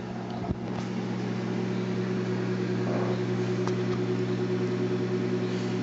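Microwave oven running with a steady low hum, heating popcorn kernels. A single click about half a second in.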